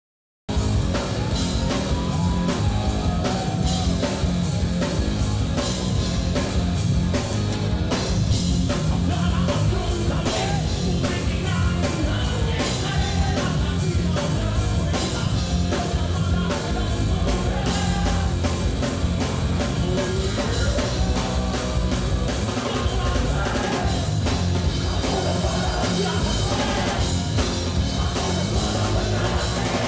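A live rock band playing loud: electric guitars, bass guitar and a drum kit, with a male vocalist singing over them. The music cuts in abruptly about half a second in.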